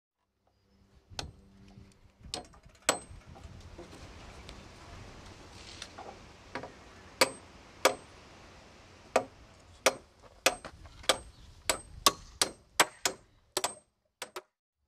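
Hammer driving nails into wooden framing lumber: a series of sharp strikes, some with a short high ping, spaced irregularly at first and coming faster toward the end, over a low background rumble.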